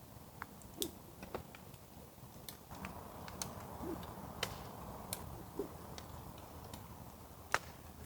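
Irregular light clicks and a few soft knocks, as of small objects being handled, with a faint hiss from about three to six seconds in.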